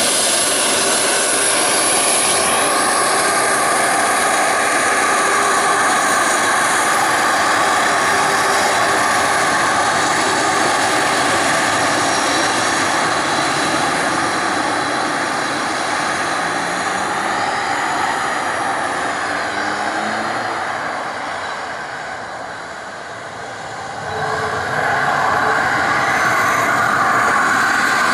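A Boeing 737-400's CFM56-3 turbofan engines whining at taxi power as the jet rolls past, a loud steady jet whine over engine rush. The whine falls in pitch in the first couple of seconds, fades for a few seconds near the end and then swells again.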